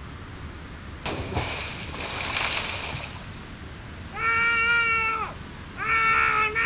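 A short burst of hiss, then a high wailing cry held for about a second and falling off at the end, followed by a run of shorter wavering wails.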